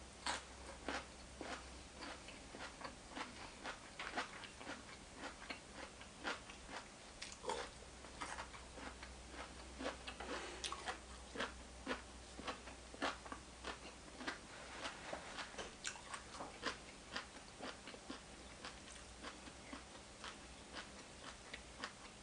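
A person chewing and biting mouthfuls of food close to the microphone: wet, irregular smacking clicks, a few each second, with a faint steady low hum underneath.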